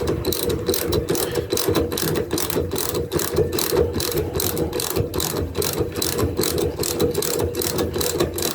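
Ratchet wrench clicking rapidly and evenly, about five clicks a second, as a bolt on a tonneau-cover latch is undone.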